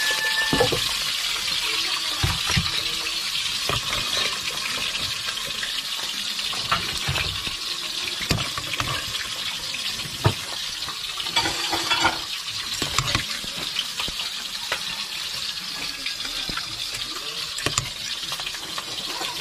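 A long metal ladle stirring and scooping the cooking liquid in an aluminium pot of boiled lobsters. Liquid pours off the ladle and the ladle knocks and clinks against the pot in scattered short strokes, over a steady hiss.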